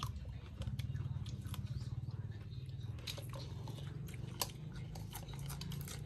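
People chewing and biting into crunchy food, raw green vegetables and chopped stir-fried frog, heard as crisp crunches and scattered small clicks over a steady low mouth-and-handling rumble.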